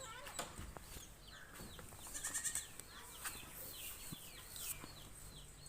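Faint animal calls: a run of short, repeated chirps, with a louder pulsing call about two seconds in.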